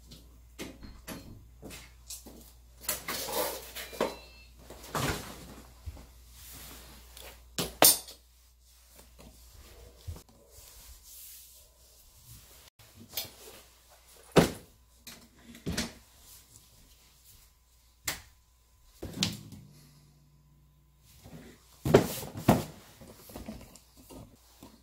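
Scattered knocks, clicks and rustles of someone moving about with a cardboard shoe box: footsteps, handling the box and setting things down, with a few sharper knocks like a door or cupboard.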